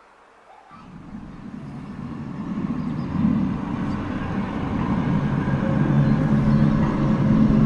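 A low rumbling drone with several steady, horn-like low tones, starting about a second in and swelling steadily louder: a recording of the mysterious 'strange sky sounds' reported in 2012.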